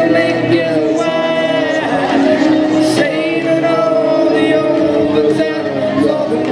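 Live group singing, with sung voices carried over a steady musical accompaniment throughout.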